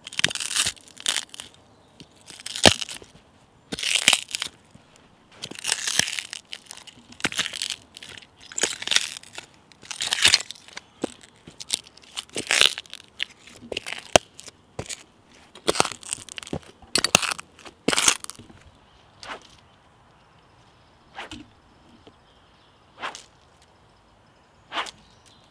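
Footsteps crunching on leaf litter and twigs on a woodland path, about one step a second, thinning out after about eighteen seconds to a few scattered steps.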